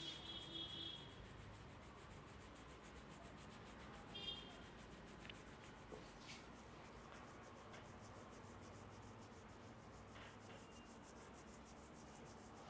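Faint rubbing of hands on hair and scalp during a head massage. A brief high chirp sounds at the start and again about four seconds in, with a few faint clicks.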